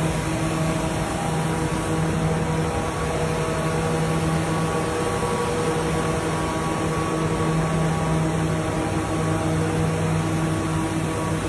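Steady mechanical hum of workshop machinery: a constant low drone with fainter steady tones above it and an even rushing noise.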